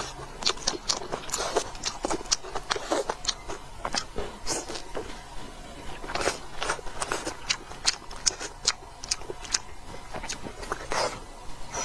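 Close-up eating sounds: a person chewing and biting food, with many short irregular crunches and clicks.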